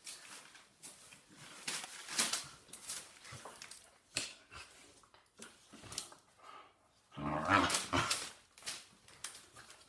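Dogs moving about and scuffling, with many short noises and one louder, low-pitched dog vocalisation lasting about a second, around seven seconds in.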